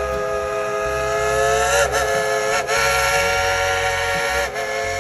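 Dollywood Express steam locomotive's whistle blowing one long blast of several tones sounding together. Its pitch rises and wavers slightly about two seconds in.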